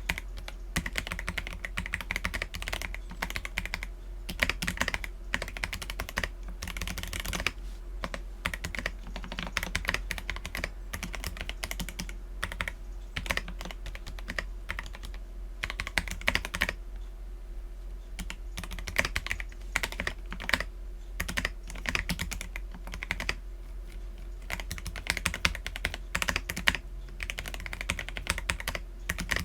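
Continuous typing on an Akko PC75B mechanical keyboard with lubed Akko Jelly Black linear switches and PBT Cherry-profile keycaps: a quick, irregular run of keystroke clacks, pausing briefly a little past halfway. A steady low hum sits underneath.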